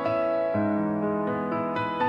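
Background music played on piano or electric piano: a slow, gentle tune of held notes changing a few times a second.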